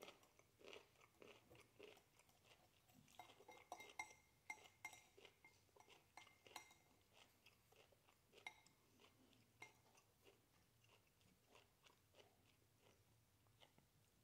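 Faint close-up chewing and crunching of broccoli, in irregular bites, with a few light clinks of a metal fork against a ceramic bowl.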